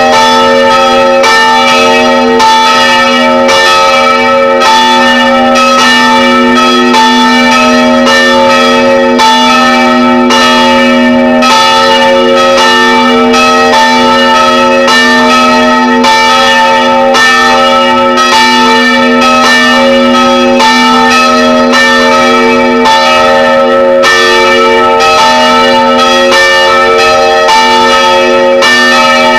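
Three church bells of about 250, 110 and 55 kg swinging and ringing together, heard from right beside them in the belfry. It is a very loud, unbroken peal of overlapping strikes whose tones keep ringing on.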